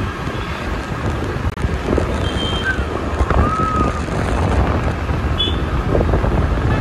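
Wind rushing over the microphone on a moving two-wheeler, with city road traffic underneath. A few brief high tones sound through it about halfway in.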